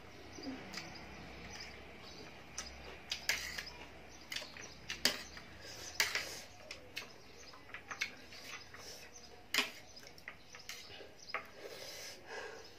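Close-up eating sounds of instant ramen noodles: irregular chewing and slurping, with scattered clicks of a fork and spoon against the tray.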